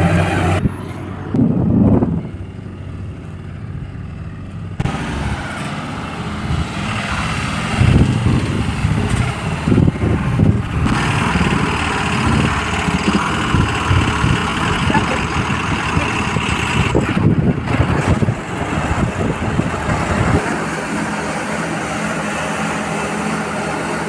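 Diesel engines of heavy earthmoving and road-building machinery running, the sound changing abruptly several times. Near the end there is a steadier engine hum.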